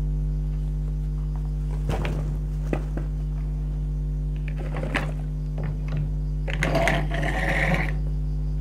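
A steady low electrical hum, with a few light knocks and, near the end, a brief rustle as craft materials are handled.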